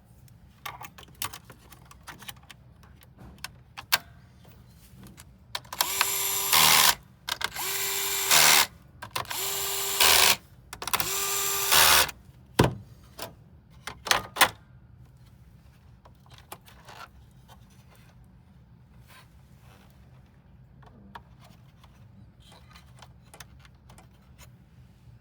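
Small electric screwdriver running in four short bursts of about a second each, driving screws, with light clicks and taps of parts being handled before and after.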